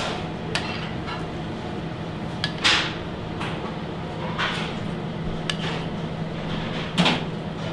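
A few light, scattered clinks of a small utensil against glass bowls and a plate, the loudest about 7 seconds in, over a steady low hum.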